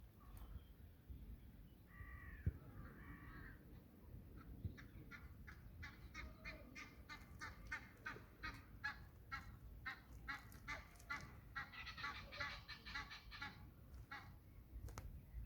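Waterfowl calling: a couple of drawn-out calls, then a long series of short, repeated honking calls, about two to three a second, that thickens into a quicker burst near the end.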